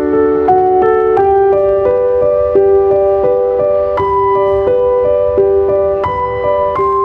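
Background music: a slow, gentle piano melody, one note after another about every half-second to a second.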